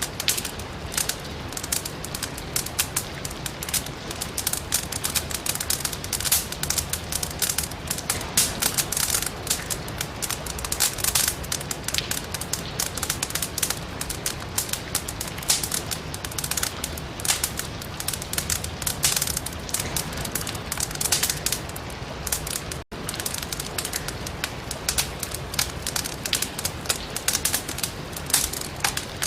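Firewood crackling in a fireplace, dense irregular pops and snaps over a steady hiss of rain. The sound cuts out for an instant about three-quarters of the way through.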